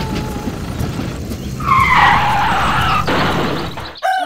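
A skidding screech over a rumbling noise: a harsh screech rises about two seconds in, lasts about a second, and the noise cuts off just before the end.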